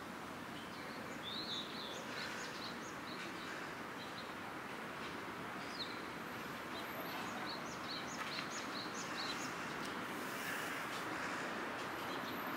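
Outdoor ambience: a steady background hiss of environmental noise that grows slightly louder near the end. A small bird chirps in quick runs of short high notes, once about a second in and again around the middle.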